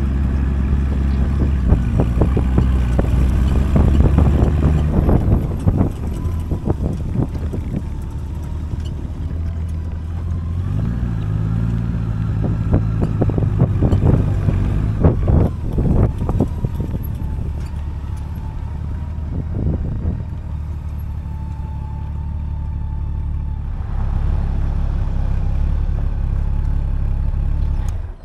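A 2008 Honda Gold Wing's flat-six engine running at low road speed, its note rising briefly about eleven seconds in and then settling again. Gusts of wind buffet the microphone throughout, loudest early on and again in the middle.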